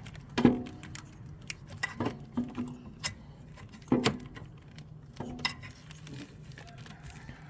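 Metal clanks and clinks of tools and car parts being handled during work on an alternator: several sharp knocks with a short ring, loudest about half a second in and again about four seconds in.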